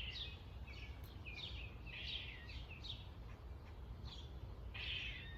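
A squirrel's repeated harsh chattering alarm calls, about two a second, some sliding down in pitch, over a steady low background rumble.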